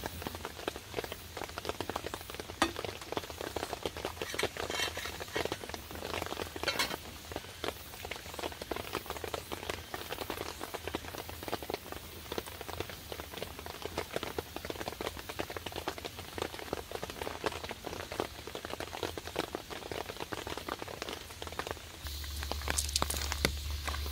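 Rain falling: a dense, steady patter of drops. About 22 seconds in it gives way to a steadier hiss with a low hum.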